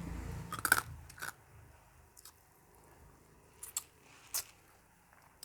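A person chewing food close to the microphone, with about five short, sharp crunches spaced irregularly through the chewing.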